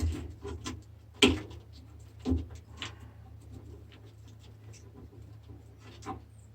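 A few sharp metallic clicks and knocks from hand tools working at the fixings of a microwave oven being dismantled for scrap, with quiet gaps between them, over a low steady hum.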